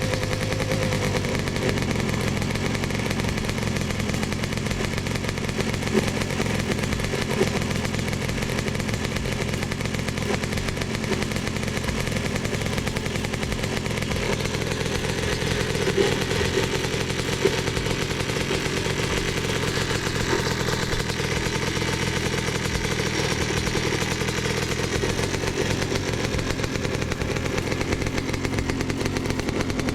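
Yamaha Blaster big-bore single-cylinder two-stroke ATV engine idling while it warms up, a fast, steady putter with a few sharper pops. The owner says the engine has really low compression.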